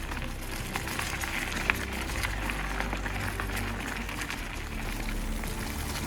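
Mountain bike riding over a rough dirt trail: steady tyre and wind rumble with scattered clicks and rattles from the bike and the trail surface.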